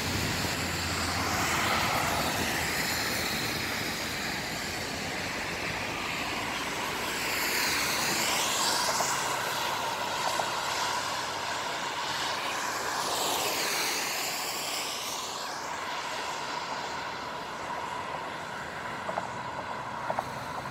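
Traffic on a wet road: a steady rush of tyre hiss, with two vehicles passing close about eight and fourteen seconds in.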